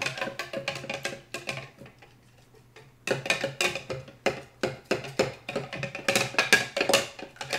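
A spoon knocking rapidly against the sides of a plastic cup as glue, water and red food colouring are beaten together for slime, in fast runs of strokes. It goes quieter about two seconds in and picks up again about a second later.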